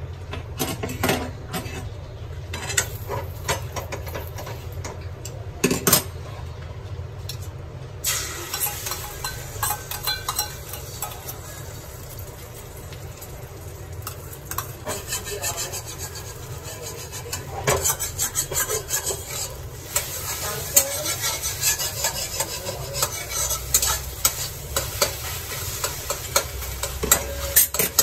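Beaten egg frying in hot oil in a steel wok, with a metal spoon and spatula clinking and scraping against the metal as it is stirred and scrambled. A hissing sizzle sets in about eight seconds in and runs on under the scraping.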